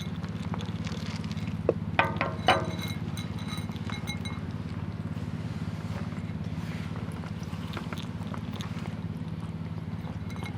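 Domestic cat purring steadily, a fast even rumble, with a few brief higher sounds about two seconds in.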